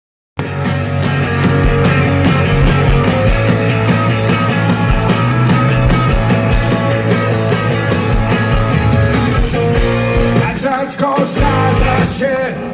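Live rock band playing loud, with electric guitars and drums, starting abruptly just after the start. About ten seconds in the bass and drums drop back, leaving a wavering melodic line on top.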